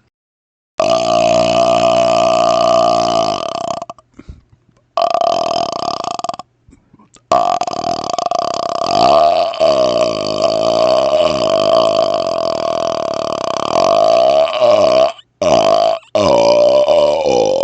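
A man's long, drawn-out burps, one after another with short pauses: one of about three seconds, a shorter one, then one lasting nearly eight seconds that wavers in pitch, and two more near the end.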